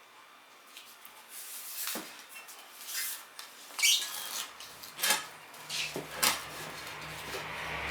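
Irregular clicks, knocks and scrapes of hand tools and metal parts being handled, the sharpest three near the middle. A low steady hum comes in partway through.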